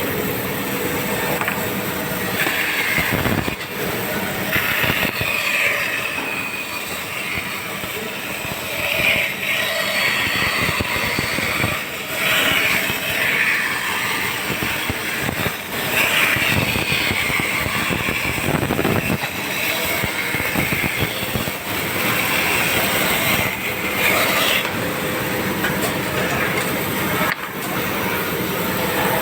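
Band saw running steadily, its blade cutting wood, with a higher-pitched hiss that comes and goes over the machine noise as each cut is made.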